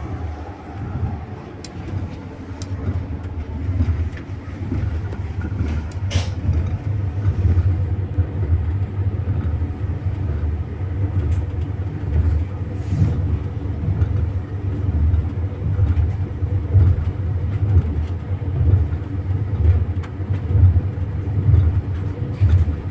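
Double-decker passenger train heard from inside a compartment: a steady low rumble of the running carriage with the clatter of the wheels on the rails. There is a sharp click about six seconds in.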